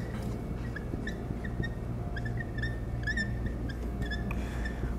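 Dry-erase marker squeaking on a whiteboard while writing: a string of short, high squeaks that stops a little after four seconds in.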